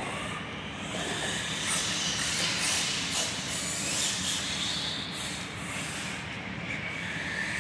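Electric RC off-road cars running on a dirt track: a steady rush of noise, with motor whines rising and falling as they speed up and slow down.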